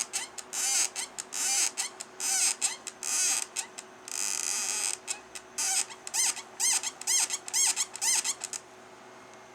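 HPI Baja 5B 2.0 RC buggy squeaking repeatedly: a quick, irregular string of short, high squeaks with a wavering pitch, one longer squeak about four seconds in, stopping about eight and a half seconds in.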